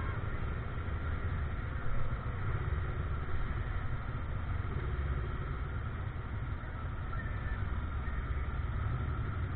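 A vehicle engine running steadily, heard as a continuous low rumble.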